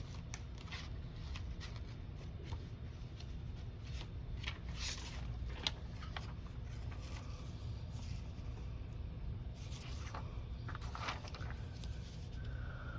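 Paper cards and craft pieces being handled and shifted on a table: scattered light rustles and small taps over a steady low hum.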